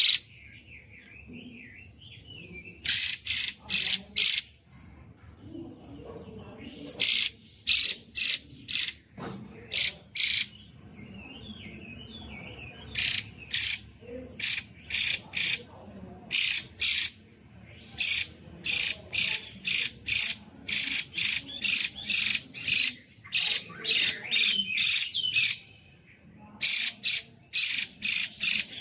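Female Chinese hwamei calling loudly and clearly in runs of short notes, about three to four a second. The runs last one to several seconds, with pauses between them, and a soft twittering is heard in the gaps.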